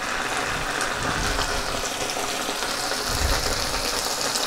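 Hot oil sizzling steadily in a frying pan, with a spoonful of tomato paste frying in it beside fried onion and sausage.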